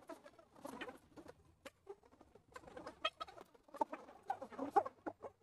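Faint, scattered bird calls and chirps with small pitch glides, with a few short clicks among them.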